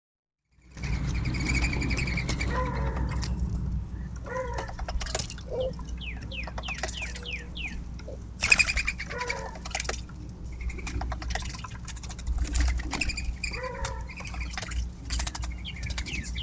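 Outdoor birdsong from several small birds: many quick, repeated chirps and high trills with a few lower notes mixed in, over a steady low rumble. It starts after a brief silence.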